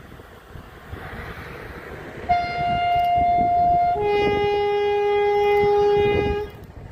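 Narrow-gauge diesel locomotive sounding its two-tone horn about two seconds in: a higher note for under two seconds, then straight into a lower note held for about two and a half seconds. Wind rumbles on the microphone.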